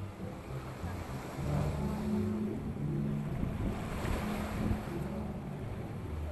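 Small ocean waves washing and splashing against a rocky seawall, with a surge about four seconds in. Under it runs a low hum of notes that change pitch every second or so.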